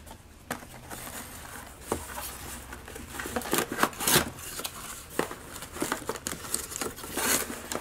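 Cardboard packaging of a camera box being handled: flaps folded back and compartments rummaged, giving irregular rustles, scrapes and taps, with a few louder ones.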